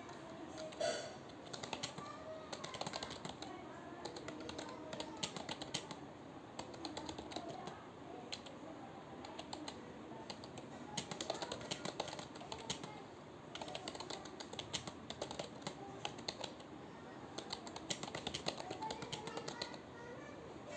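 Typing on a computer keyboard: fast runs of key clicks broken by brief pauses.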